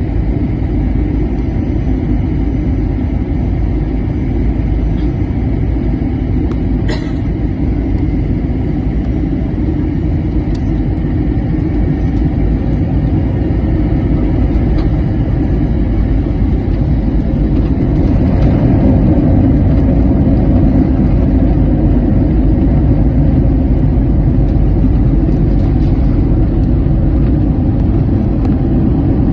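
Cabin noise of an Airbus A321-200 airliner touching down and rolling out on the runway: a loud, steady deep rumble of engines, airflow and wheels. A single sharp knock comes about seven seconds in, and the noise grows louder about eighteen seconds in.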